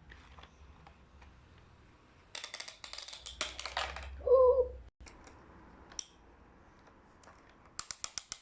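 Rapid, sharp clicking and rattling of hard plastic, in a dense spell of about two and a half seconds with a low hum under it that stops suddenly. A second short, quick run of clicks comes near the end.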